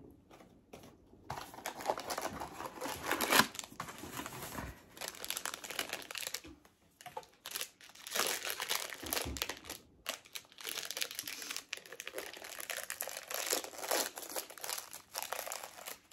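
Crinkling and tearing of a Tokidoki blind-box figure's wrapping as it is opened by hand. It comes in long stretches of dense crackling with short pauses.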